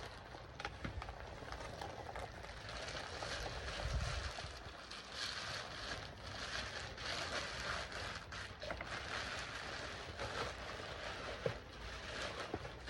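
Rustling and crinkling of packaging being handled and unwrapped, with many small clicks and crackles.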